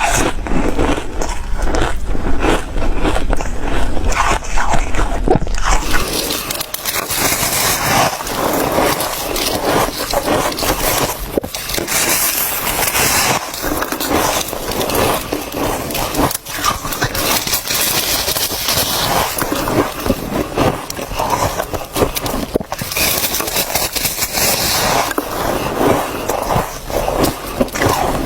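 Ice being bitten and crunched close to the microphone: a dense run of crisp cracks and crunches, changing in character about six seconds in.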